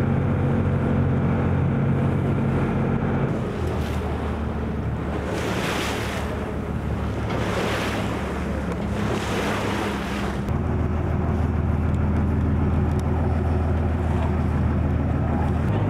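A boat's engine droning steadily underway, with wind and water noise throughout. About midway there are three louder rushes of wind and water noise.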